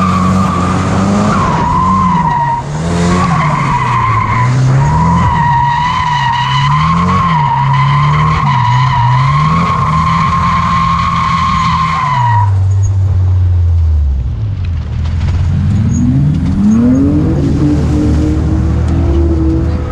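Nissan Silvia S14 drifting: the tyres squeal in one steady high screech while the engine revs rise and fall again and again under the throttle. About twelve seconds in the squeal stops and the revs drop away, and near the end the engine revs up again.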